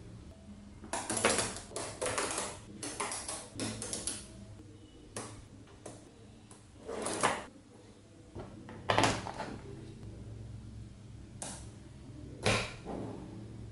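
Small spherical neodymium magnet balls clicking and clattering as rods of them are handled and snapped together on a table, in irregular bursts of clicks and rattles.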